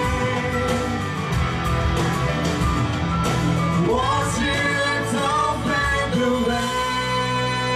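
A male and a female singer sing a duet into handheld microphones over a recorded backing track. The voices swell in with sliding, held notes about four seconds in, over a steady instrumental accompaniment.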